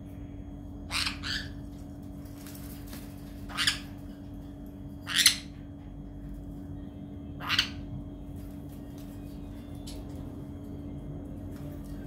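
A pet parrot giving short, harsh squawks: a quick pair about a second in, then single squawks spaced a couple of seconds apart, the loudest near the middle, and a faint one near the end.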